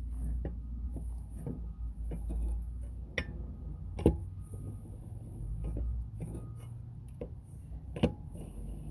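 Tools and parts being handled and put away: scattered metallic clinks and knocks, with two louder clanks about four and eight seconds in.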